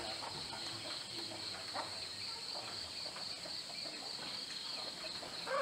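Steady chorus of insects such as crickets, a continuous high-pitched trill, with a few faint short calls.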